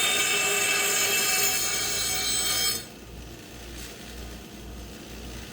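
A power grinder sharpening a finish mower's blade: a loud, steady high whine with a hiss of grinding that cuts off abruptly about three seconds in.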